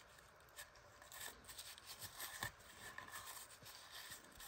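Faint rubbing and rustling of a paper tissue wiping excess sealant from around a freshly installed freeze plug in a cylinder head, with a few small ticks.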